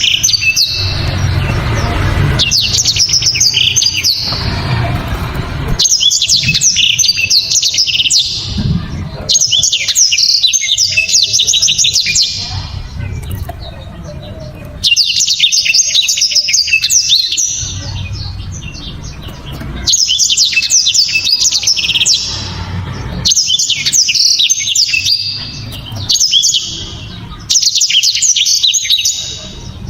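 Black-throated canary (blackthroat) singing: loud, rapid bursts of high twittering song, each a couple of seconds long, repeated every three to four seconds with short pauses between.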